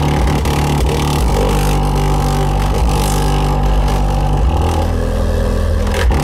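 Digital Designs DD1508 8-inch subwoofer playing bass-heavy music loud, with deep held bass notes that change pitch every second or two.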